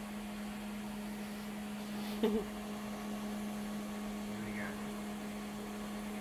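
Steady electrical hum with one low tone and its overtones, holding a constant level. A short faint sound, its pitch wavering, about two seconds in.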